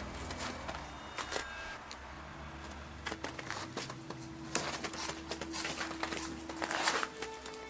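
Scattered clicks, knocks and rustles of people moving about a dark room with a handheld camera, over a faint steady hum.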